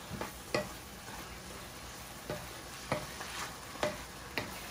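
Chopped bok choy and onion sizzling in oil in a nonstick frying pan as a wooden spoon stirs them, with several short knocks of the spoon against the pan.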